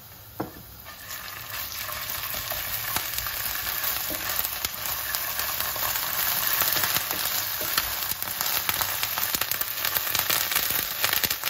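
Minced garlic and chopped red onion sizzling in hot olive oil in a ceramic-coated frying pan, stirred with a wooden spatula. The sizzle swells about a second in, then holds steady with many small crackling pops.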